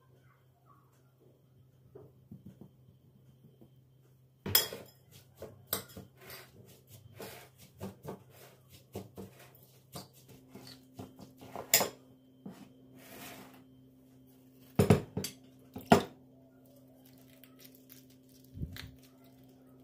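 Dishes and cutlery being handled: irregular clinks and knocks of crockery and metal utensils that start about four seconds in, the two loudest near the end, over a steady low hum.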